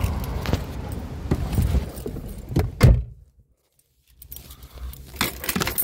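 Car keys jangling and rustling as someone climbs into the driver's seat of a car, with one heavy thump near the three-second mark. About a second of silence follows, then more key and handling clicks.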